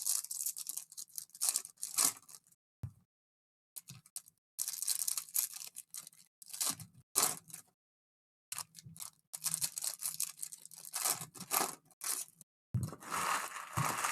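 Foil trading card pack wrappers being torn open and crinkled, in repeated irregular bursts of tearing and crackling with short pauses between.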